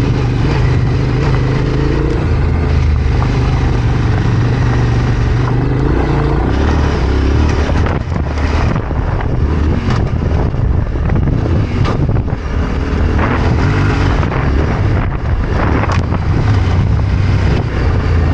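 Yamaha Ténéré 700 parallel-twin motorcycle engine running while riding off-road, with wind noise on the microphone. The engine note holds steady for about six seconds, then drops and wavers, with a few sharp knocks later on.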